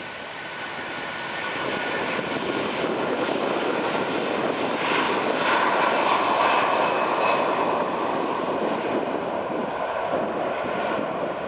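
Airbus A330-300's Rolls-Royce Trent 700 turbofans at take-off thrust as the jet accelerates down the runway, a jet roar with a faint whine that grows louder as it passes, is loudest about halfway through, then eases a little as it moves away.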